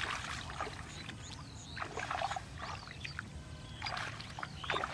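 Shallow paddy-field water splashing and sloshing in three short bouts: one at the start, one about two seconds in, and one near the end.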